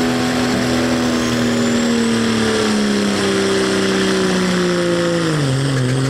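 Dodge Ram pickup's Cummins diesel engine running at full throttle under heavy load while pulling a sled. Its pitch holds steady, sinks from about two seconds in, and falls steeply near the end as the growing sled weight drags the engine speed down.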